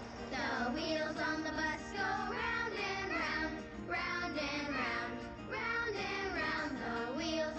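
A children's song playing from a Toniebox: a sung vocal line over a music backing, with the singing coming in just after the start.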